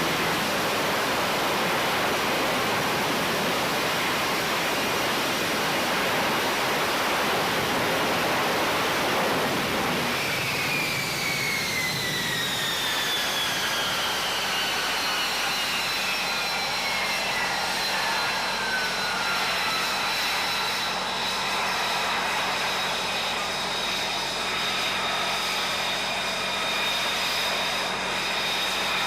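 F-35B jet engine running with a steady roar. About ten seconds in, the roar eases and a high whine appears that falls slowly in pitch, while other high whines hold steady.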